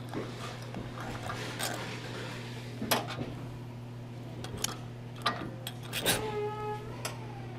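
Metal parts of a small brushed DC motor being handled and knocked together as it is taken apart: scattered clinks and taps, one of which, about six seconds in, rings briefly like a struck metal part.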